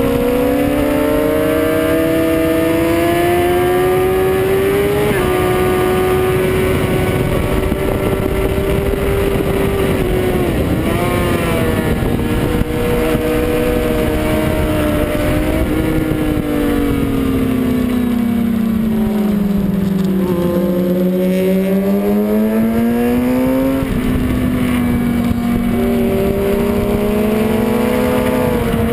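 Suzuki GSX-R sportbike's inline-four engine heard on board at track speed over a steady rush of wind. The revs climb for the first few seconds and drop with a gear change about five seconds in. They dip briefly near the middle, sag slowly through a long corner, then climb again.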